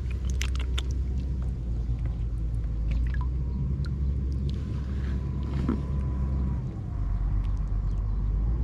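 A small engine running steadily with a low rumble that dips briefly near the end, over light splashes and clicks of water being handled.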